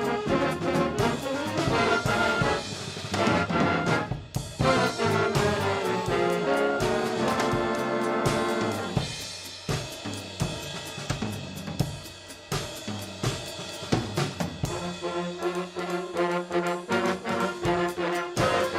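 Instrumental band music led by trombones and trumpets over a drum kit, with regular drum strokes and a held brass chord about eight seconds in.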